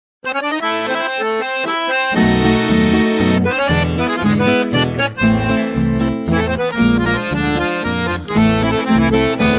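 Chamamé instrumental introduction: an accordion starts the melody alone, and about two seconds in a deeper rhythmic accompaniment joins it.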